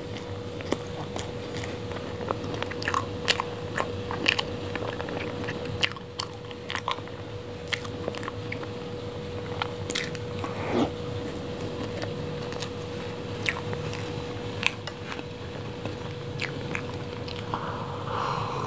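Close-miked chewing of soft red velvet cake eaten by hand, with wet mouth clicks and lip smacks scattered throughout. Near the end comes a sip and swallow of a drink.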